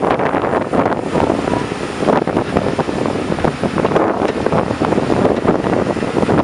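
Wind rushing over the microphone from an open window of a moving bus, with the bus's running noise underneath, steady and loud throughout.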